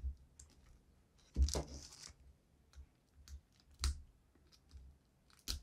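Plastic shrink wrap being cut and peeled off a metal Blu-ray steelbook case with a small blade: a short crinkling rustle about a second and a half in, then scattered light clicks and taps, the sharpest about four seconds in and again near the end.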